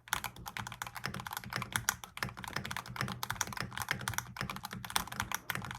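Fast, continuous typing on a custom Geonworks Frog TKL mechanical keyboard with hand-lubed Everglide Aqua King linear switches, GMK keycaps and Durock V2 stabilizers: a dense run of deep "thocky" key presses.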